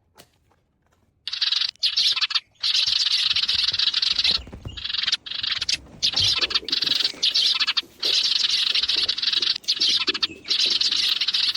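Electronic chirping from an interactive bird cat toy's small speaker, imitating birdsong. It starts about a second in and runs in long stretches broken by short pauses.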